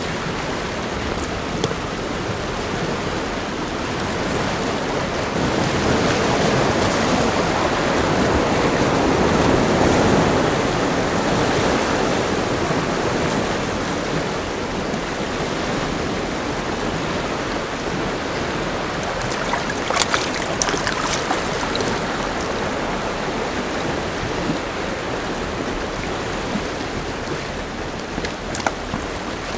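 Sea surf washing against the rocks, a steady rush that swells for several seconds a third of the way through. A few short sharp clicks sound about two-thirds of the way in and again near the end.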